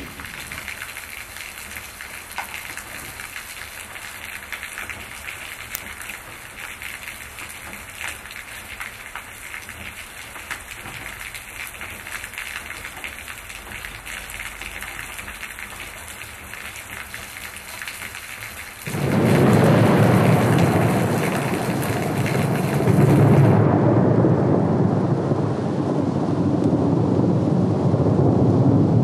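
Steady rain falling on a wet tiled patio, a hiss full of fine ticks of drops. About 19 seconds in, a loud roll of thunder breaks in and rumbles on, louder than the rain.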